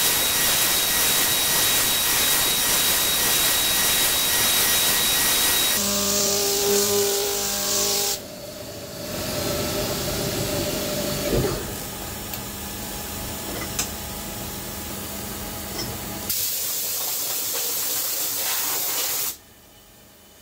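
CNC milling machine finishing a spiral pocket with an end mill: a loud steady hiss from the air-blast nozzle over the cut, with a steady high whine. About six seconds in the cutting ends and the sound changes to a few lower steady tones. It then drops to a quieter hiss that swells again later, as chips are blown off the part with compressed air, and cuts off about a second before the end.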